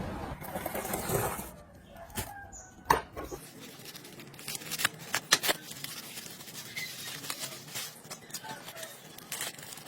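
Scattered small sharp clicks and taps of light work at close range, several in a quick cluster about five seconds in.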